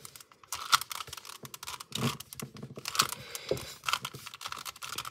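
Plastic Rubik's cube being turned by hand: irregular clicking and clacking of the layers as they twist, some clicks in quick runs.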